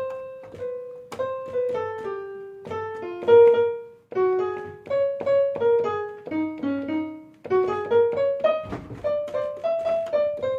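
Piano sound played note by note from a Nektar Impact LX49 MIDI keyboard, a slow run of single notes with a few paired, each struck and fading: keys being tested after a repair for missing keys.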